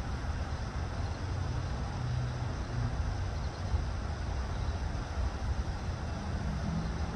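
Steady low rumble of an idling vehicle engine, with a faint hum and no distinct beats or clicks.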